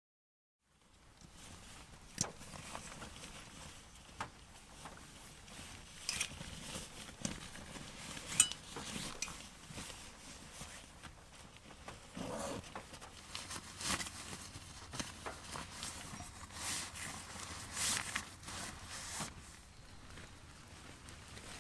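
Scattered footsteps, knocks and clatters of camping gear being handled, irregular and at a few a second, over a steady low hiss.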